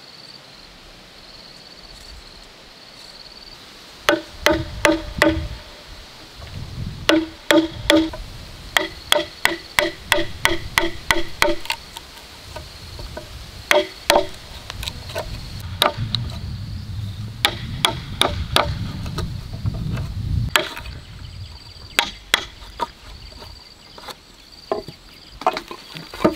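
Chisel struck repeatedly with a hammer, cutting a mortise into a wooden beam: runs of sharp, ringing blows, about three a second at their fastest, starting about four seconds in. A steady high insect drone sounds underneath.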